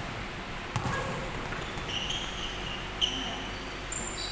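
A basketball bouncing on a hardwood court about a second in, then sneakers squeaking on the floor in several short high chirps through the second half.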